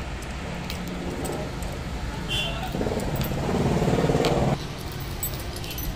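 Steel chain links clinking and clicking as an opened link is squeezed shut with pliers. From about three seconds in, a louder rapidly pulsing engine-like noise runs for about a second and a half and cuts off suddenly.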